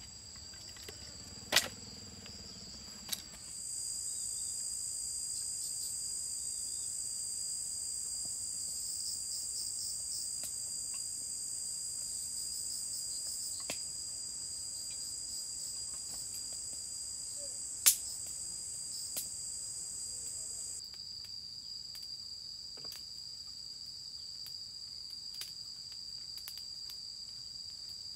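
A chorus of insects chirring steadily in high, unbroken tones. A second, louder insect voice joins about four seconds in and stops abruptly about seven seconds before the end. A few sharp knocks of a knife on wood come in the first three seconds, and one sharp click comes later.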